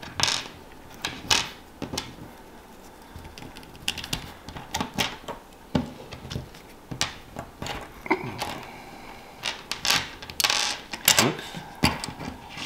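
Irregular small clicks and taps of a Hyper 212 CPU cooler's black backplate and its mounting pins as the pins are fitted into the backplate's slots by hand, the parts knocking against each other and the wooden table.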